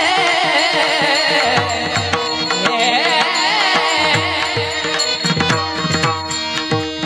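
Devotional kirtan music: a harmonium melody over a steady rhythm of hand-drum strokes.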